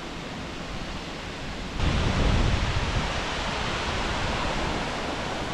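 Steady rush of falling and flowing water from a waterfall and the fast river below it. About two seconds in, the rush turns suddenly louder and deeper.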